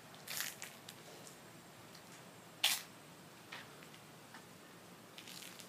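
Footsteps on a concrete patio: a few soft scuffs, one sharper click a little before the middle, then lighter steps just under a second apart.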